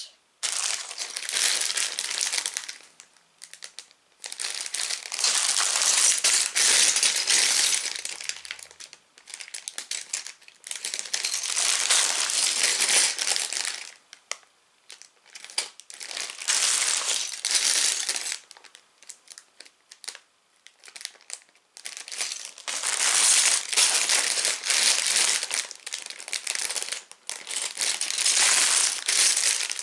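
Sealed plastic LEGO parts bags crinkling as they are picked up and handled one after another, in a series of bouts a few seconds long with short pauses between.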